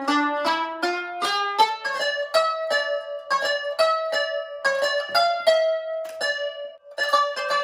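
Background instrumental music: a quick melody of plucked-string notes, each struck sharply and ringing briefly, with no voice.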